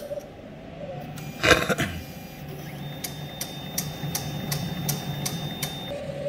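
Roland wide-format inkjet printer running its bias head-alignment test print: a loud knock about a second and a half in, then the carriage motor hums steadily with regular ticks about three times a second and a thin high whine.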